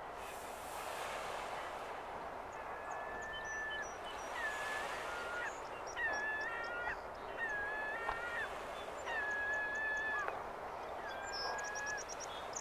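Water birds giving a series of clear, level-pitched calls, each under a second and dropping slightly in pitch at the end, repeated about eight times over a steady background hiss.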